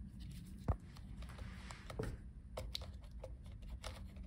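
Light clicks and scratches of fingertips working the thin speaker wire and small plastic parts inside an opened ThinkPad laptop, with one dull knock a little under a second in.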